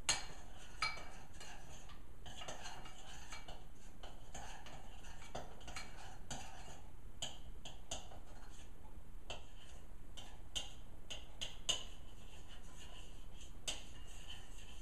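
A spoon stirring melting chocolate in a saucepan on the stove, scraping round the pot with irregular sharp clinks against its sides.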